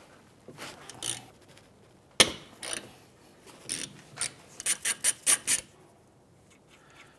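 Ratchet and 12mm socket working out the rear brake caliper bolts: a sharp snap about two seconds in, then scattered clicks and a quick run of ratchet clicks, about five a second, near the middle.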